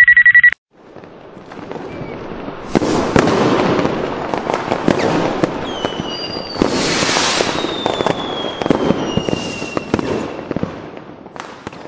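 Fireworks sound effect: after a brief electronic beep, a building fizz and crackle of fireworks with many sharp pops and bangs, and a high whistle gliding down in pitch from about six to ten seconds in, thinning out to scattered pops near the end.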